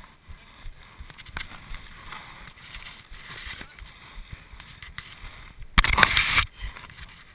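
Mountain bike rolling over a gravel track: a steady rush of tyre and wind noise with many small knocks and rattles. About six seconds in comes a loud, noisy burst lasting under a second.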